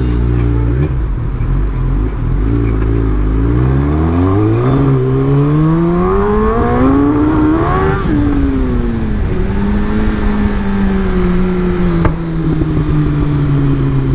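Kawasaki ZX-10R's inline-four engine at low revs, then revving up with a smoothly rising pitch as the bike pulls away from a stop about four seconds in. The pitch drops sharply about eight seconds in, then the engine settles into a steady, slowly falling note while cruising.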